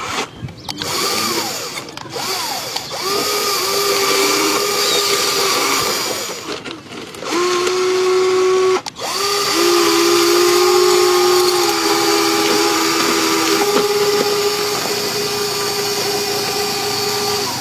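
Small electric motors of an RC model excavator whining in stretches as it drives its tracks and works its arm, stopping and restarting several times, the pitch shifting a little as the load changes.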